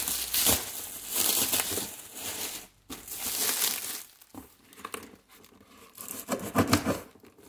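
Packing tape and cardboard crinkling and tearing as a folding pocket knife is worked along the taped seam of a cardboard box, in several bursts with short pauses between them.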